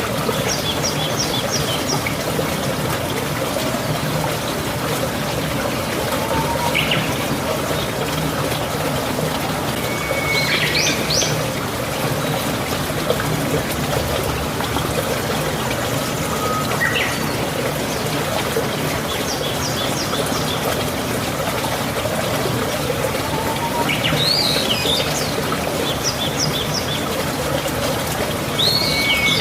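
Steady trickling and running water, with songbirds calling every few seconds: short high series of notes and quick rising whistles.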